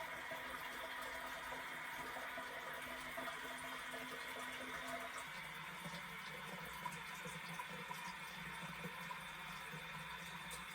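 Toilet tank refilling through its ball tap: a steady rush of water with a steady whining tone on top. This is the ball tap's abnormal noise. About halfway through, the low hum shifts lower and gets stronger.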